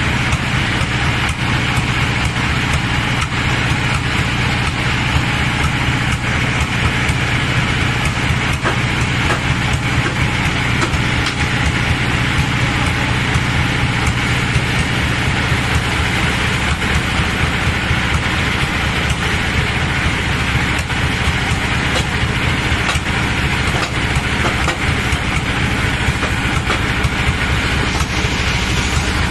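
Band sawmill machinery running steadily, an even low mechanical hum that holds without change throughout.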